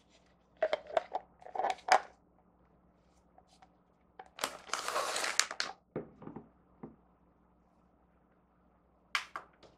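Handling sounds: sharp plastic clicks and knocks as an LED tealight is fitted into a small hard-plastic pumpkin pot, then a crinkle of a plastic snack bag for about a second and a half, and a few light taps as things are set down on a table.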